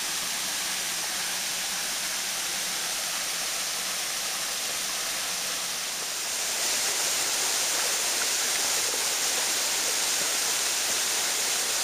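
Waterfall: a steady rush of water falling into a pool, a little louder from about six and a half seconds in.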